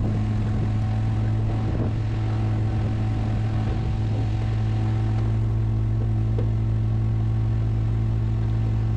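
Pickup truck engine running steadily at low speed while towing a tree stump on a chain: a constant low drone that does not change in pitch.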